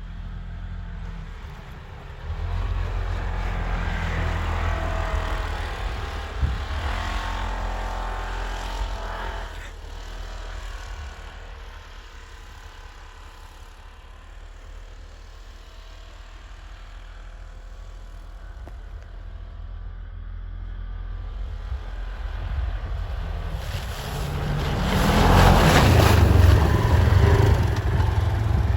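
Polaris Ranger XP1000 side-by-side's twin-cylinder engine running while driving on tire chains. It picks up about two seconds in, eases off through the middle, then runs hardest near the end with a loud rushing noise.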